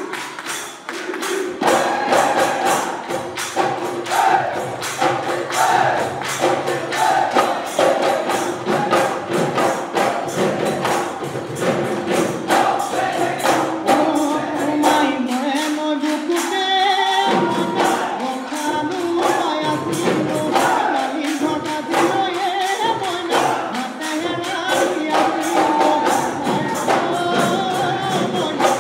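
Live Bihu music: dhol drums and cymbals beating a fast, driving rhythm under group singing, with a brief high piped note about two-thirds of the way through.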